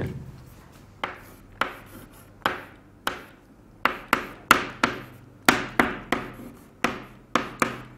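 Chalk writing on a blackboard: a string of sharp, irregular taps, about two a second, as the chalk strikes and strokes the board, each tap fading quickly.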